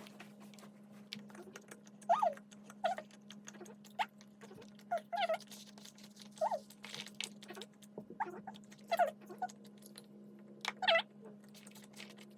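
A small animal's short squeaks and whines, repeated irregularly, over a steady low hum.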